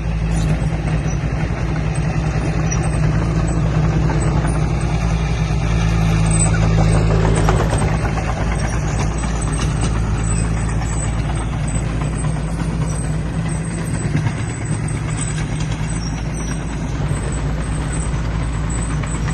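Heavy diesel engine of earthmoving machinery running steadily, with a constant low drone.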